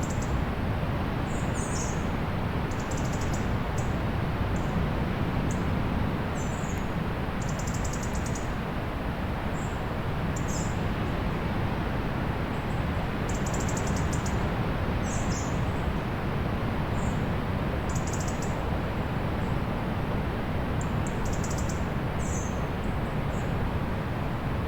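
Steady wash of ocean surf, with small birds chirping briefly every second or two over it.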